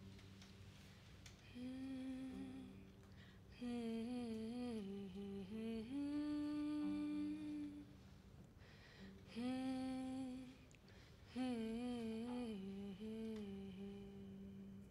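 A voice humming a slow, wavering melody in short phrases with pauses between them, over a low note held steadily underneath.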